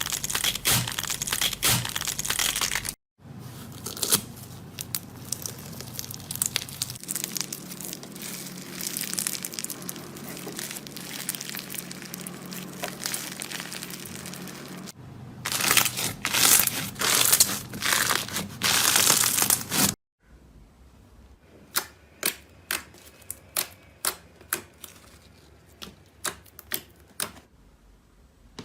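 Slime being squished and worked, with dense crackling and crunching, in a string of short clips cut off abruptly. In the last part the crackle thins to separate sharp pops.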